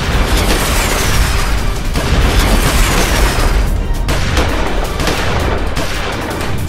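Explosion sound effects over background music: a falling whistle ending in a boom, repeating about every two seconds.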